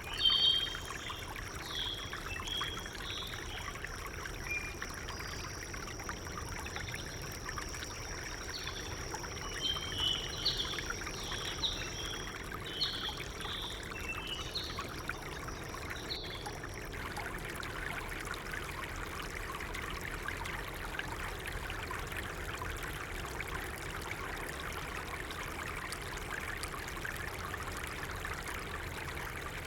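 A flowing stream with birds chirping over it. About halfway through, the birdsong and a steady high tone stop at once and the water turns to a brighter, fuller rush.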